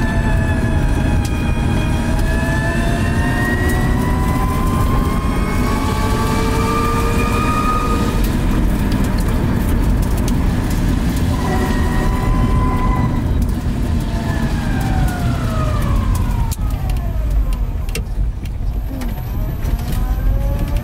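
Inside the cabin of a ZEV Electric T3-1 three-wheeler on a rough, wet road: a steady low rumble of tyres and body over the broken pavement, with the 4 kW electric motor's whine gliding up and down in pitch as the trike speeds up and slows. Near the end the whine falls away low and then climbs again, with a few light rattles.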